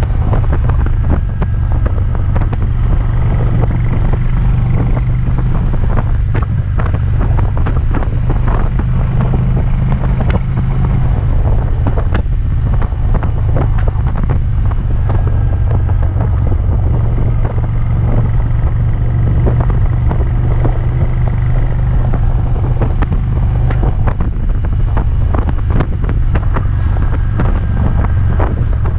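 Harley-Davidson Twin Cam 103 V-twin engine running under load, with wind on the microphone and repeated ticks over the engine's steady drone. The ticking comes under load and not at idle, and its cause is unknown to the owner, who has already fitted a new compensator, new tappets and pushrods, and found no play in the rocker arms.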